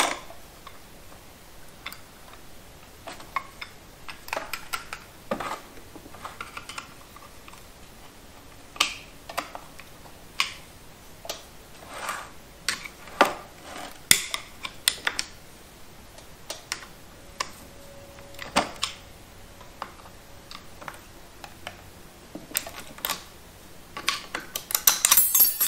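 Metal transmission parts clinking and tapping as a TH350 clutch pack is taken apart by hand: scattered light clicks of clutch plates lifted from the drum and set down, with a quick run of clinks near the end.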